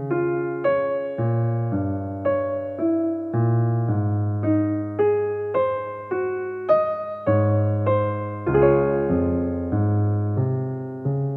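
Background piano music: a gentle melody of single struck notes, about two a second, over held bass notes, with a final chord ringing out near the end.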